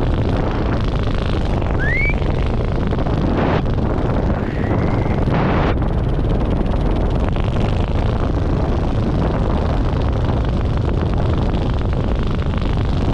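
Steady, loud wind rushing over the microphone of a camera flying under a parachute canopy.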